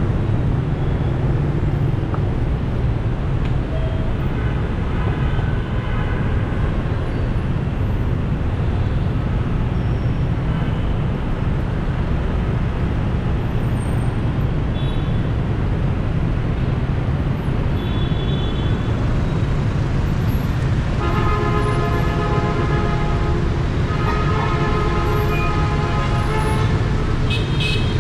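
Steady engine and road noise of a vehicle driving through city traffic. Near the end, vehicle horns honk in two long blasts, each a couple of seconds.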